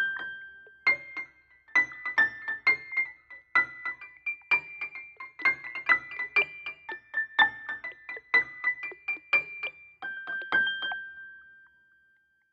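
Keyboard playing a high melody of single struck notes, about two or three a second, as the song's instrumental close. It ends on a last note that rings out and fades near the end.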